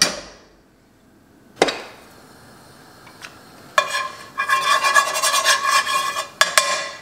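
A spoon scraping and rubbing against a cast iron pot as solid bacon grease is worked off it: a single knock about one and a half seconds in, then a dense, rasping run of scraping strokes with a metallic ring from about four seconds in.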